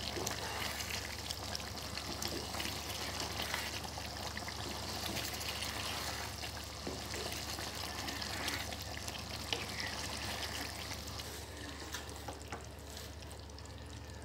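Chicken pieces sizzling and bubbling in hot oil and masala in a non-stick wok while being sautéed (bhuna) and stirred with a wooden spatula, with small crackles and soft scrapes. It grows a little quieter near the end, as the stirring stops.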